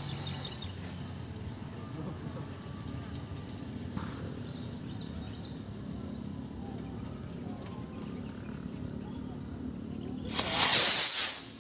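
Insects chirping in short, repeated trills over a steady outdoor background. About ten seconds in, a kwitis skyrocket launches with a loud hiss lasting about a second.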